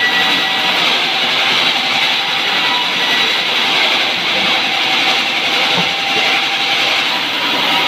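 Large sawmill band saw running steadily while cutting a wooden plank, a dense high hiss of blade and sawdust with a faint steady whine under it.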